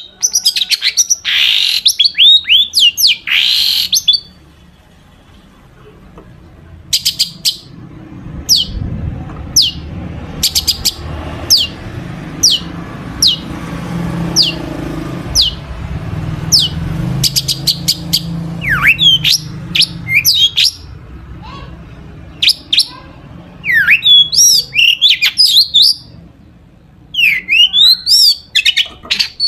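Long-tailed shrike singing a song full of mimicked calls of other birds: bursts of sharp chirps and downward-sweeping whistles at the start and again in the last few seconds, with a long run of quick separate ticking notes in between. A low hum runs underneath through the middle part.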